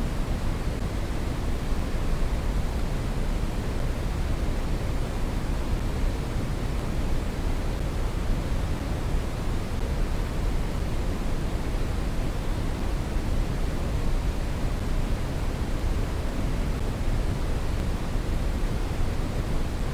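Brown noise: a steady, deep rushing hiss, strongest in the bass and fading toward the treble, unchanging throughout.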